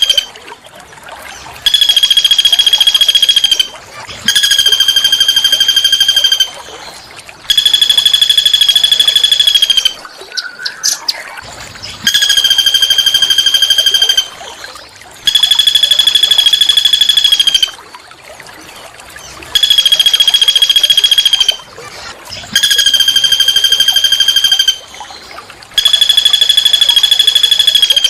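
A small songbird's harsh, buzzy call, held at one steady pitch for about two seconds and repeated about eight times with short pauses. A brief, different chirp comes in one gap about ten seconds in.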